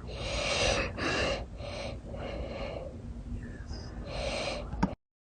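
A person breathing hard, about five loud breathy breaths in a row, ending in one short sharp hiccup.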